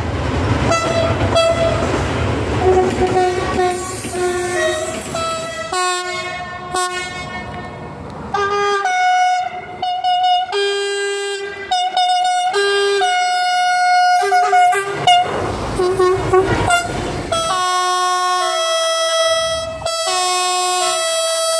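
Train locomotive horns blasting again and again, two-tone horns stepping between a higher and a lower note, from several trains in turn. The rumble of a passing train runs under the horns for the first few seconds and again about sixteen seconds in.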